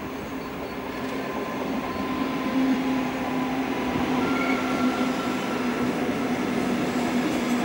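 NS VIRM-4 double-deck electric multiple unit running into a station: a steady rumble of wheels on rail with a steady low hum, growing gradually louder as the train draws closer.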